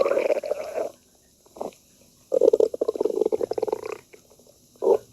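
Stomach growling in separate bouts of rapid gurgling pulses: one in the first second, a brief one near the middle of the first half, a long one from a little past two seconds to about four, and a short one near the end.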